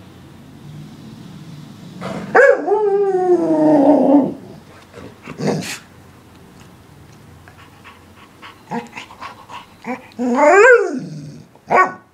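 English springer spaniel vocalizing, 'talking': a long drawn-out call about two seconds in that slides down in pitch, a short sharp yap, then another call near the end that rises and then falls in pitch, followed by a brief yip.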